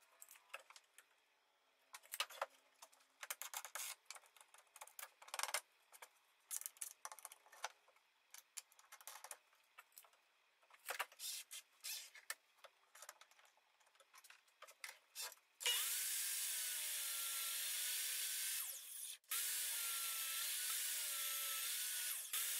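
Pieces of 2x6 lumber knocking and sliding as they are set against a miter saw's fence, then, about two-thirds of the way in, the miter saw starts up and its blade cuts through the wood. The whine wavers in pitch as the blade takes the cut. It breaks off for an instant and starts again.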